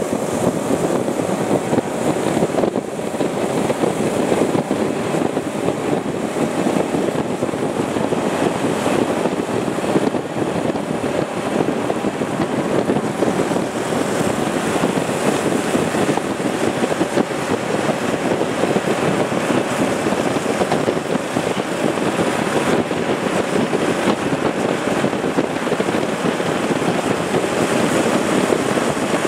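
Motorcycles riding in a group: a steady rush of wind on the microphone over the running engines, heard from a camera on a moving motorcycle.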